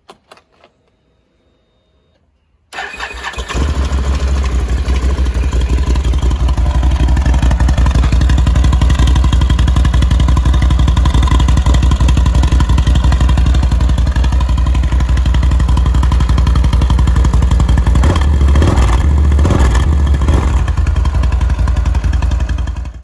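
Can-Am Renegade ATV's V-twin engine starts about three seconds in and settles into a loud, steady running, with a few changes in engine speed near the end.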